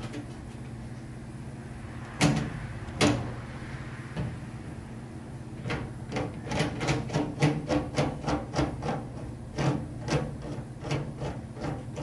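Hand rivnut tool being worked after setting a rivnut: two sharp metal clicks, then a run of quick clicks, about three a second, over a steady low hum.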